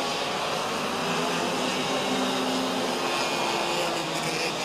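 Several Rok 125 cc two-stroke racing kart engines running at high revs as a group of karts goes by on the circuit, a steady buzzing with engine tones that shift in pitch.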